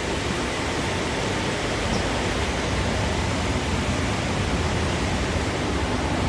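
Steady rumble and hiss inside a Sydney Trains K set carriage: the running noise of the train underway.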